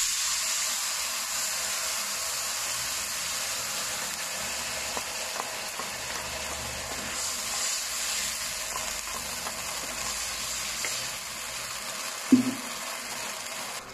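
Tomato-based sweet-and-spicy sauce sizzling in a hot wok over a little oil and being stirred with a wooden spatula as it cooks down to thicken; the sizzle slowly eases. A short knock about twelve seconds in.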